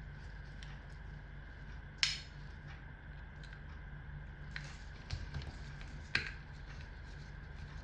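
Sharp clicks and light taps of small spinning-reel parts and screws being handled during disassembly, the loudest click about two seconds in and another about six seconds in, over a steady faint hum.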